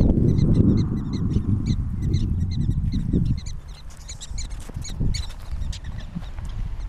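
Black-tailed prairie dogs giving rapid, repeated chirping alarm barks, several a second, which die away about five seconds in. A loud low rumble lies under the calls for the first three seconds.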